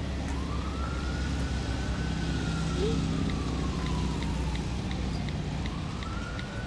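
A siren wailing in one slow rise and long fall, starting to rise again near the end, over a steady low rumble of city noise. About halfway through comes a quick run of light taps from typing on a phone's keyboard.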